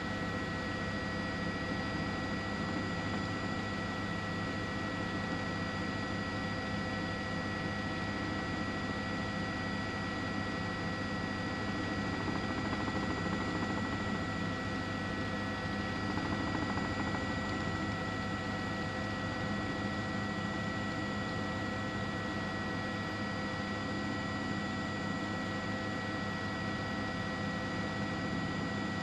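Steady engine and rotor noise of a helicopter heard from aboard, a constant drone with a high whine over it.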